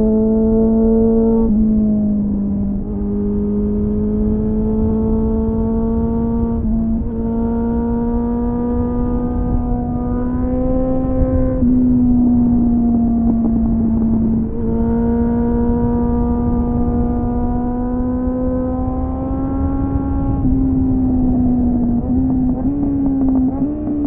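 2001 Suzuki GSF600 Bandit's inline-four engine running through an aftermarket SC-Project-style exhaust with a home-made dB killer, heard onboard while riding: a steady engine note held at fairly even revs, with several brief dips and pitch shifts where the throttle is rolled off or a gear changes. The sound is slightly muffled.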